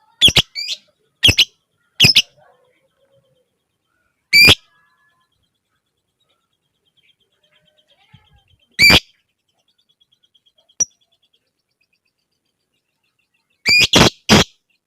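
Lovebird giving short, sharp, shrill calls, singly or in quick pairs, with long pauses between them. A faint rapid trill runs in the background partway through.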